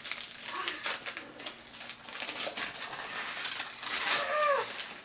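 Wrapping paper being torn and crinkled off a gift box in a series of short rips. A brief voice sound with falling pitch comes about four seconds in.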